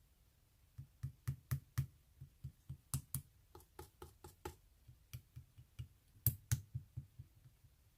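A regular run of light taps or knocks, about four a second. Each has a dull thud and a sharp click. The taps start just under a second in and stop about seven seconds in, and the two loudest come near the end.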